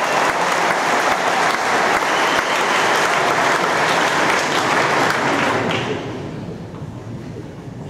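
Arena audience applauding, the clapping thinning out about six seconds in.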